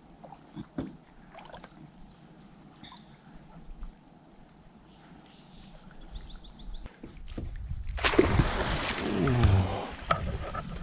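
Canoe paddle dipping quietly with small drips and knocks. About eight seconds in there is a loud rush and splash of water, with a low falling groan in it, as a seal dives right beside the canoe.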